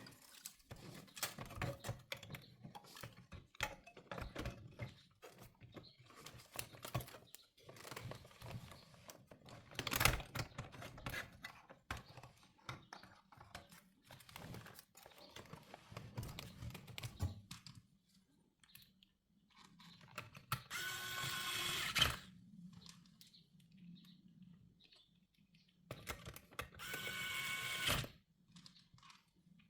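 Plastic dashboard trim and parts being handled and pushed back into place: irregular clicks, taps and knocks. About two-thirds of the way in, and again near the end, a small motor whines steadily for a second or so, like a cordless screwdriver run in short bursts.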